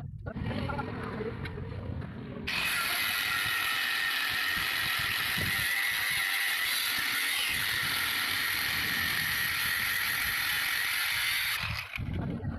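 Metalworking noise: a few seconds of light clattering, then a steady, loud, high-pitched grinding hiss. It starts abruptly about two and a half seconds in and cuts off suddenly near the end.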